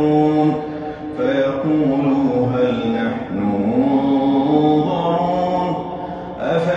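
A man's voice reciting the Quran in melodic tajwid chant, drawing out long held notes that glide slowly in pitch. It breaks off briefly about a second in and again near the end.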